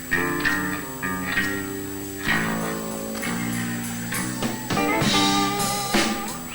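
Live band playing an instrumental tune, with the guitar prominent over drums.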